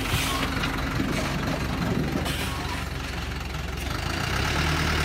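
Diesel engine of a Thaco Forland dump truck running steadily, the log-laden truck's wheels in deep mud, with short hissing noises near the start and about two seconds in. The engine note rises and grows louder near the end.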